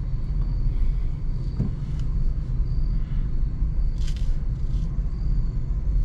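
Steady low rumble of a car heard from inside its cabin while it moves slowly in a line of traffic.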